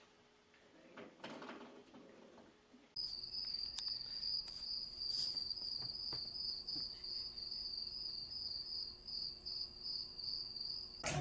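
A continuous high-pitched cricket-like trill, pulsing quickly, that starts abruptly about three seconds in, with a few faint clicks over it. Before it there are only faint soft rustles.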